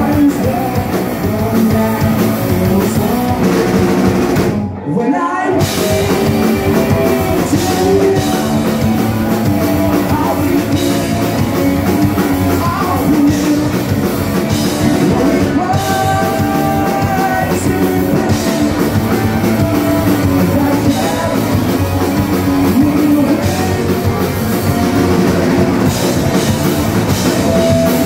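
Punk rock band playing live through club amplification: electric guitars, bass guitar and drum kit with a sung vocal line. The band stops for a split second about five seconds in, then comes straight back in.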